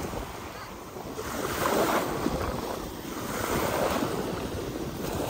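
Small waves washing in and breaking on a stony shingle shore, the wash swelling twice, with wind buffeting the microphone.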